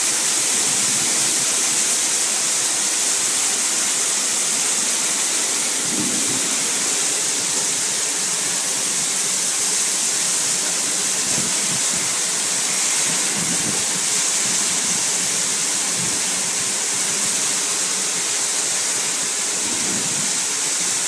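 Heavy rain pouring down on roofs in a steady, dense hiss, with a few brief low rumbles.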